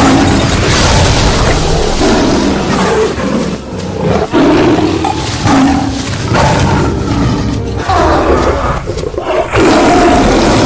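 Tiger roaring and snarling, several roars one after another.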